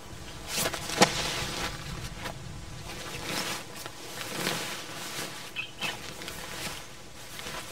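Nylon tent fabric and its carry bag rustling as they are handled and unpacked on the grass, with a sharp knock about a second in, the loudest sound.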